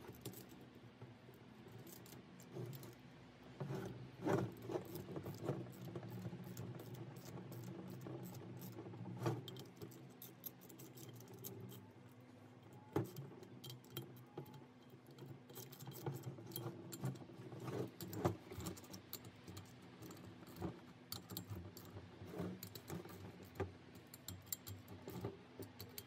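Socket ratchet clicking and metal tools clinking as the rocker box bolts on a Harley-Davidson shovelhead cylinder head are run down and tightened, in irregular runs of small clicks with a few sharper knocks, over a steady low hum.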